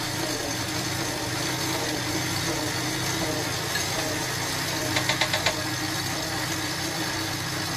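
Electric stand mixer running steadily at high speed, kneading bread dough while butter is worked in. About five seconds in, five quick sharp taps.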